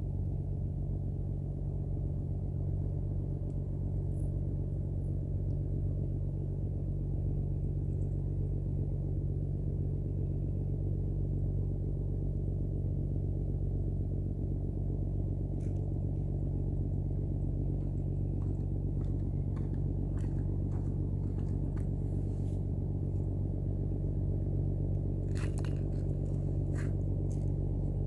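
A steady low motor drone with a constant hum, running evenly throughout. Scattered sharp clicks and taps come in over the second half, bunched together near the end.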